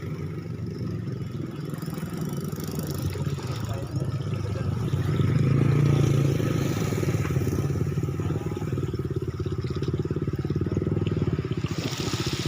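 Speedboat engines running steadily, swelling louder about five seconds in and then easing back a little.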